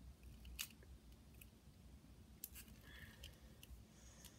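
Faint handling noise from a plastic S.H.Figuarts Piccolo action figure: a few soft clicks and taps as its parts are handled and the head is fitted back on, the clearest about half a second in.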